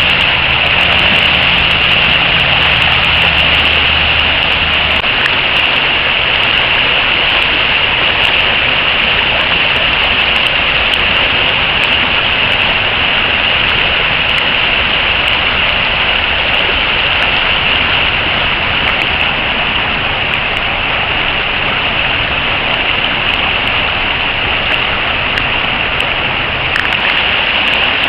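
River rapids rushing over rocks: a loud, steady rush of whitewater.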